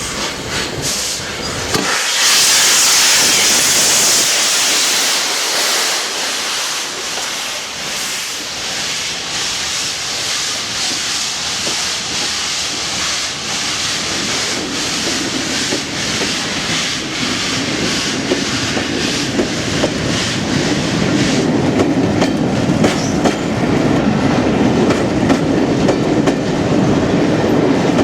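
Train rolling past over rail joints with a clickety-clack of wheels. A loud hiss comes in about two seconds in and fades, and the heavier rumble of the train grows toward the end.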